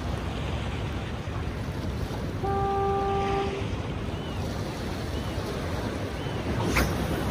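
Surf and wind washing against a rock jetty, with a single steady horn blast lasting about a second, beginning about two and a half seconds in. A few faint short high chirps follow.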